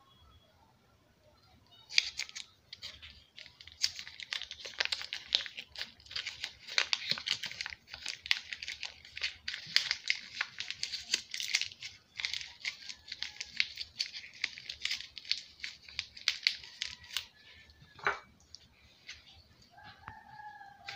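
A margarine wrapper being torn open and crinkled by hand: a dense run of crackling and tearing that starts about two seconds in and goes on for about fifteen seconds. Near the end comes a brief high whine.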